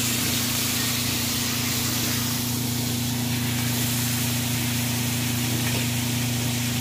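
Steady sizzling hiss of steak frying in a cast-iron skillet, over a low steady hum.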